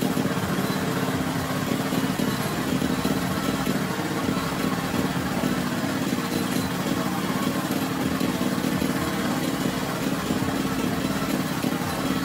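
Small engine running steadily at one speed.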